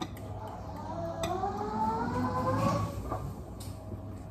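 A table knife clinking lightly against a plate a couple of times while butter is spread on bread slices. A faint voice, slowly rising in pitch, sounds in the background.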